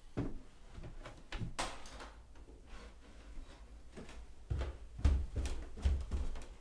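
Footsteps coming down basement stairs: scattered knocks and creaks at first, then heavy, evenly paced thuds about two a second in the second half.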